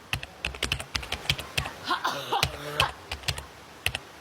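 A woman sneezing once, about halfway through, amid rapid sharp clicks like typing on a keyboard.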